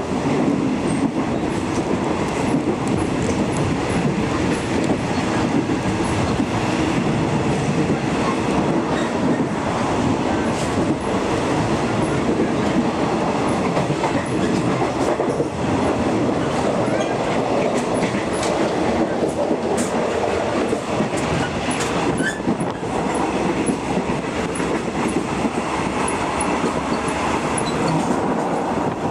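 State Railway of Thailand non-air-conditioned passenger car running along the track, heard from inside the car: a loud, steady noise of wheels on rail and the car body rattling, with scattered short clicks.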